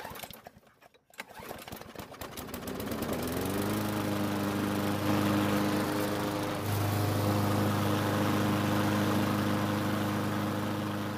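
Briggs & Stratton push-mower engine starting up and running up to speed about three seconds in, then running steadily. Its note gets louder about two-thirds of the way through.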